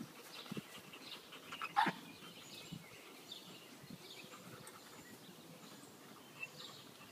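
A dog panting faintly, with one short whine about two seconds in.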